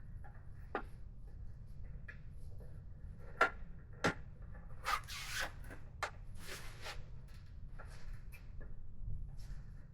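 Rubber grommet being worked into a bolt hole in a plastic motorcycle windshield: handling and rubbing noises with several sharp clicks and taps, the loudest at about three and a half and four seconds in, and scraping around five and seven seconds.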